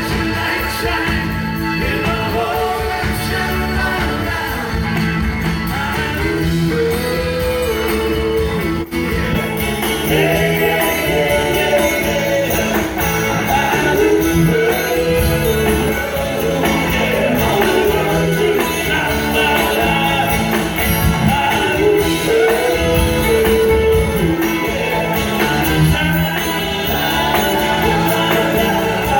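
Live rock band playing at full volume with a steady beat, guitar and drums, in a passage without clear lyrics.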